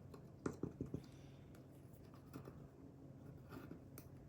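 Faint clicks, taps and light rubbing from hands handling the small plastic fan parts with a cloth, most clustered about half a second to a second in, over a steady low hum.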